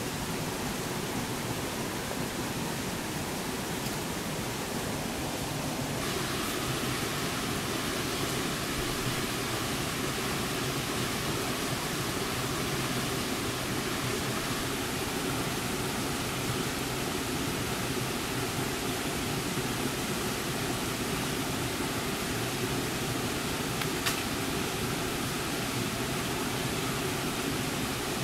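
Steady, even hiss, brighter from about six seconds in, with a single sharp click near the end.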